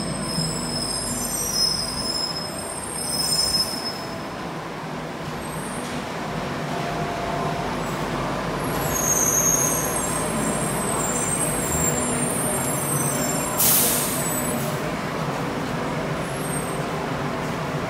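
Bombardier rubber-tyred light rail vehicle of the Bukit Panjang LRT moving through the station: a steady rumble with high-pitched squealing that comes and goes. About 14 seconds in there is a short, loud burst of hiss.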